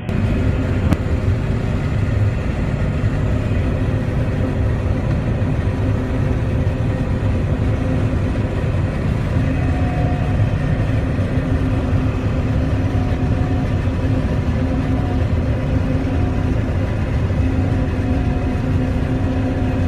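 John Deere 9600 combine harvester running steadily while harvesting, heard from inside the cab as an even engine and machinery drone, with a single click about a second in.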